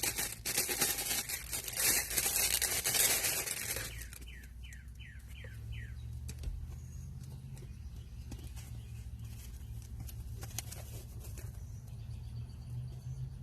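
Packaging being torn open and crinkled for about four seconds, then quieter handling with faint clicks. Partway through, five quick falling chirps sound in a row.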